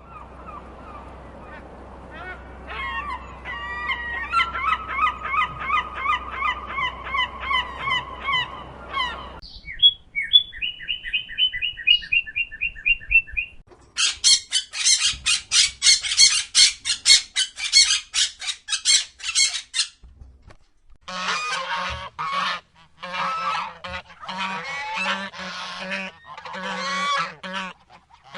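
A sequence of bird calls: seagulls calling over a low steady rumble for about nine seconds, then a cardinal singing a run of repeated whistled notes, then a parrot squawking rapidly and shrilly, and from about three-quarters of the way through, geese honking.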